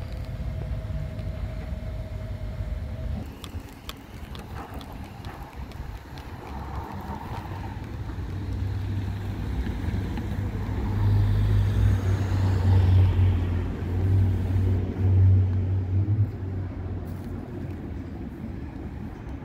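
Recycling garbage truck's diesel engine running with traffic on a suburban street, a car passing close by. A low rumbling drone swells and is loudest for several seconds around the middle.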